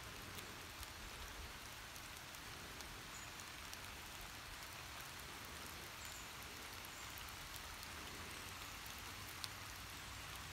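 Faint, steady outdoor hiss of the forest background, with a few faint high chirps and a single sharp tick about nine and a half seconds in.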